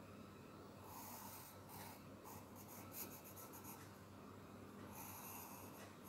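Pencil scratching faintly on paper as lines are drawn, in a run of short strokes with a pause before a last stroke near the end.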